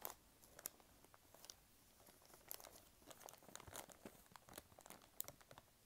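Faint scattered clicks and light rustles of costume jewelry pieces being moved and sorted by hand, small metal and plastic pieces knocking together, with the clicks coming more often in the second half.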